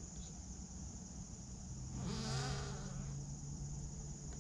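A steady, high-pitched chorus of swamp insects, with a flying insect buzzing close past the microphone from about two seconds in, loudest just after it arrives.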